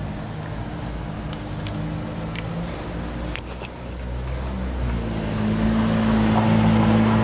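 Motor vehicle engine running nearby, a low hum that grows louder over the last two seconds.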